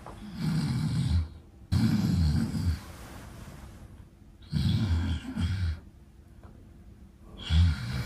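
A man's loud, deliberately put-on snoring: three long snores and a shorter one near the end, with quiet breaths between them.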